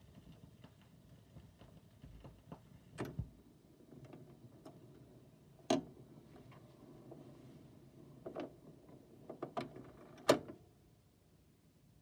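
Record player after the song has ended: a low rumble with scattered sharp clicks and knocks, several spaced a few seconds apart and a cluster of louder ones near the end. The rumble cuts out shortly before the end.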